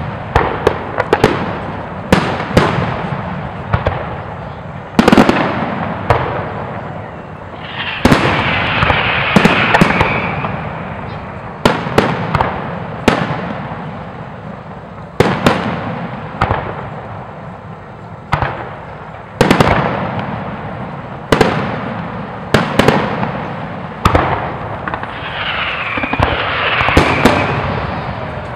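Aerial firework shells bursting overhead: a long run of sharp bangs, one or two a second, each trailing off in an echo. Twice, about eight seconds in and again near the end, a dense crackling hiss rises over the bangs.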